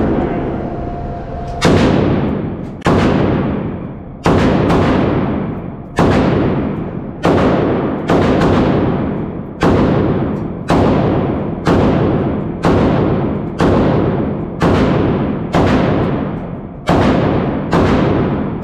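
AK-pattern pistol fired semi-automatically at a slow, steady pace, about one shot a second, each a sharp crack with a long echoing tail. The first shot comes about a second and a half in.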